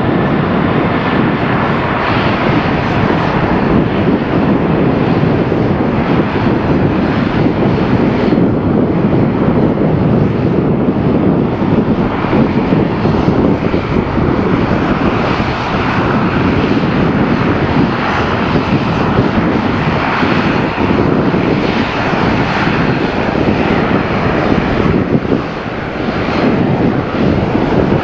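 Lockheed L-1011 TriStar's three Rolls-Royce RB211 turbofans at take-off power as the jet rolls down the runway, lifts off and climbs away: a loud, steady jet noise.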